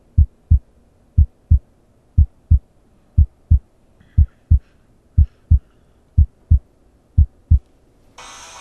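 Heartbeat sound effect: paired low thumps, a double beat about once a second, eight times over. Music starts just before the end.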